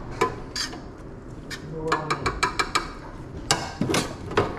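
Metal serving fork clinking and scraping against a stainless-steel steam-table pan and counter as sauerkraut is forked onto a hot dog. Short sharp clinks come in a string, bunching up from about two seconds in and loudest near the end, over a low steady hum.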